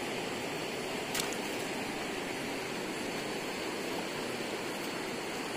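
Steady rushing of river water, with a faint click about a second in.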